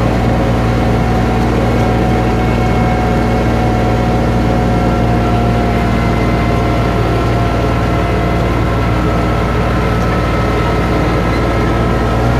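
Engine of a small motorised ride train running steadily as the train rolls along: a constant low hum with a few faint steady whining tones above it.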